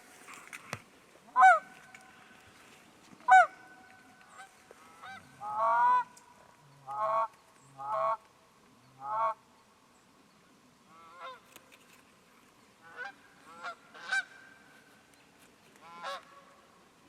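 Geese honking: a series of about a dozen short honks, loudest in the first half and fainter after about ten seconds.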